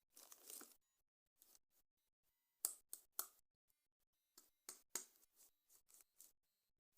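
Toy packaging being handled and opened: a short rustle at the start, then a scatter of sharp, quiet clicks and snaps.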